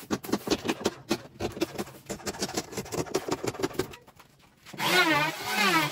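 A hand tool scrapes and files the edge of high-pressure laminate (HPL) on a plywood table top in quick rasping strokes, about five a second. Near the end a pitched sound comes in, wavering up and down.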